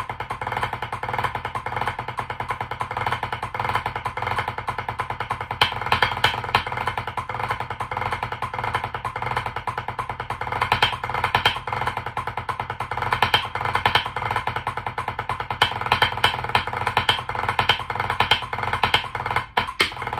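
Drumsticks playing fast, even single strokes on a rubber drum practice pad at 192 BPM, a single-stroke fives pattern with regularly spaced louder accents.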